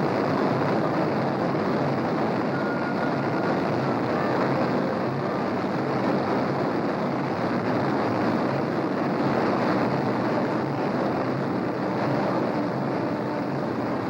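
The four Pratt & Whitney R-4360 Wasp Major radial piston engines of a Boeing 377 Stratocruiser running steadily, warming up just after being started. It is a dense, even drone with no change in pitch or level.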